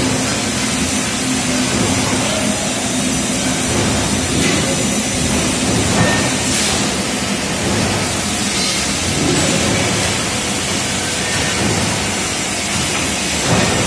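Centre lathe running steadily while cutting a thread on a long steel lead screw: a steady mechanical drone with a low hum.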